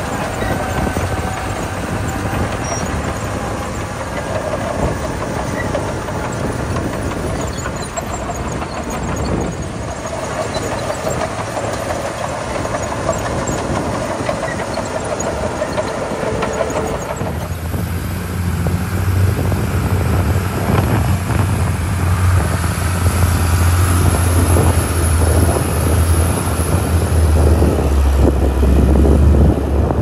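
Crawler bulldozer's diesel engine running under load as its blade pushes gravel, with a whine over the gravel crunch. About halfway through this gives way to a heavy dump truck's diesel engine, a louder, deep steady drone.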